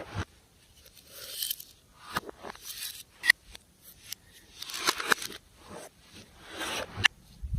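Slime being squeezed and worked by hand: sticky crackling swells, broken by several sharp pops.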